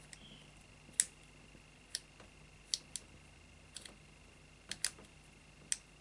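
Rolson combination bike lock's number wheels being turned, clicking from one number to the next: about eight sharp clicks at uneven intervals, some in quick pairs.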